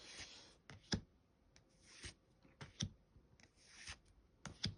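Pokémon trading cards and their foil pack being handled: soft rustles of cards sliding against each other, with a few sharp taps or clicks, the loudest about a second in and near the end.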